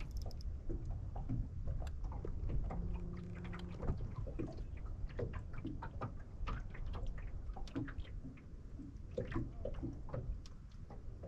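Water splashing and sloshing, with scattered small clicks and knocks over a steady low rumble, as a hooked black bass is fought and brought to hand at the surface. A brief low hum comes in about three seconds in.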